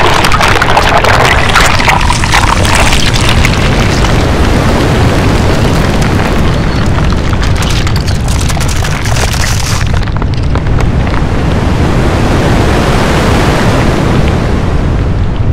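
Designed sound effect for a mountain bursting up out of the ground: a loud, continuous deep rumble with dense crackling over it. The crackle and hiss cut out about ten seconds in, leaving the low rumble.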